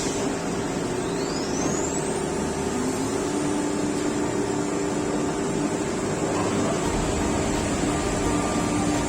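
CNC nesting router running with a steady mechanical hum and hiss, with a thin rising whine about a second in.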